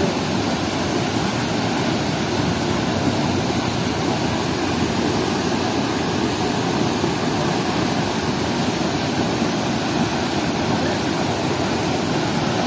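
Water gushing out from under an open sluice gate of a weir into churning white water: a steady, unbroken rush.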